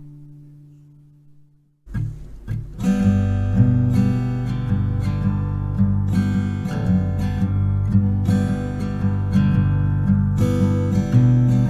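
Acoustic guitar music. A held chord fades out over the first two seconds, then, after a short gap, strummed chords start and play on steadily.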